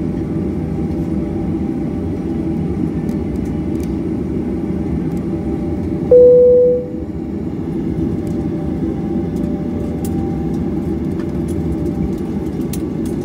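Airliner cabin noise: the steady low rumble of the jet's engines at idle as it taxis. About six seconds in, a single loud cabin chime rings and fades over about a second.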